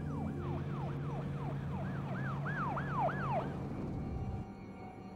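Police car siren yelping in fast repeated up-and-down sweeps, about three and a half a second, cutting off about three and a half seconds in. Under it runs a low, steady engine drone that stops near the end.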